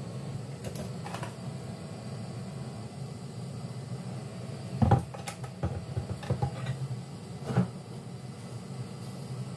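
Cooking oil poured from a bottle into a stainless-steel saucepan, with several knocks and clatters from handling the bottle and pan, the loudest about five seconds in, over a steady low hum.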